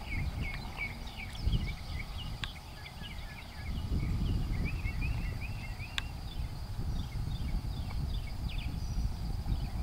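Outdoor arena ambience: a steady low rumble with the faint hoofbeats of a horse loping on sand. Birds chirp through the first half, over a steady high faint hiss.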